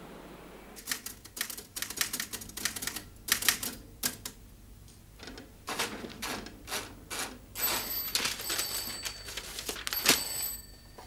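Typewriter keys clacking in quick, irregular runs. Near the end a desk telephone rings over the typing, a high ringing in short spurts.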